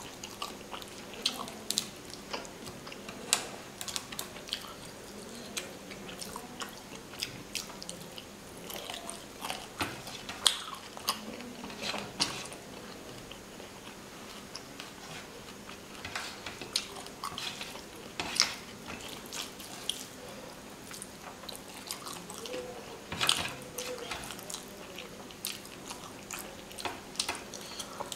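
Close-miked eating by hand: chewing and wet mouth smacks on rice and fish curry, with irregular sharp clicks and the squish of fingers working rice on a steel plate.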